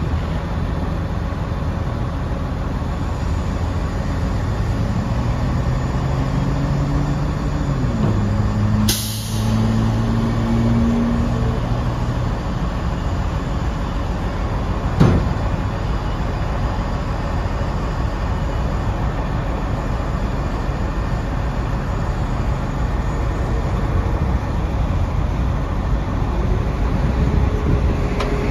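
The Cummins ISC inline-six diesel of a 2006 Freightliner M2 grapple truck runs steadily. It rises in pitch and holds there for several seconds while driving the hydraulics to lower the dump body. A sharp burst of air hiss comes about nine seconds in and a single knock around fifteen seconds, and the engine pitch rises again near the end.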